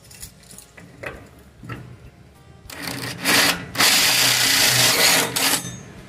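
Power drill with a hole saw boring through an aluminum door through a lock-installation template, to re-drill the lock hole nearer the beveled edge. After a few light clicks, the drill runs loudly for about three seconds from midway, with a brief let-up partway through, then stops.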